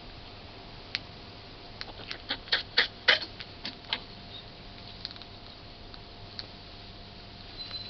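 Hedgehog coughing: a quick run of about ten short, sharp coughs, loudest in the middle, with a few single ones before and after.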